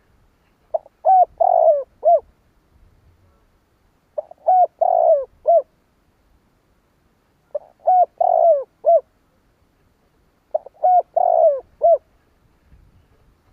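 Spotted dove cooing: four repeated phrases, one about every three seconds, each a few short notes and a longer, drawn-out note.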